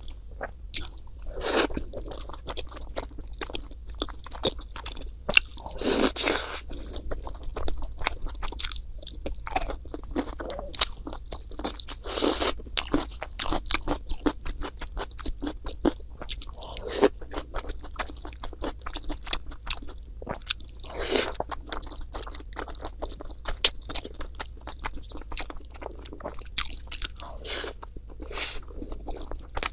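Close-up eating sounds: crunchy chewing with dense, rapid crackling clicks, and a louder mouthful sound every four to five seconds.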